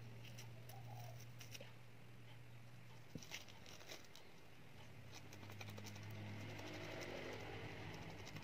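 Used tea bags being torn open by hand and the wet tea leaves worked out: faint, scattered small ticks and crackles, over a steady low hum.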